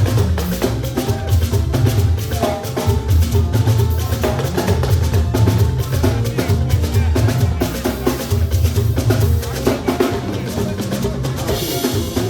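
Band music with a steady drum-kit beat and heavy bass.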